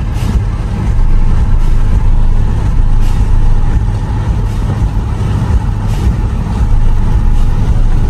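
Infiniti Q50 cruising at highway speed, heard from inside the cabin: a steady low rumble of engine and road noise.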